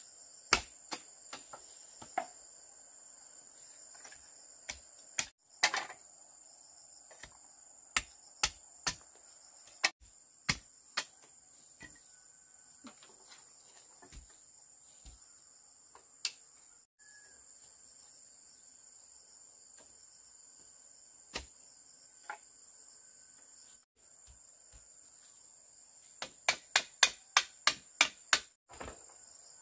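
Steady high-pitched insect chorus, broken by sharp hammer blows: single knocks scattered throughout, then a fast run of about ten strikes at roughly four a second near the end, as when driving a nail.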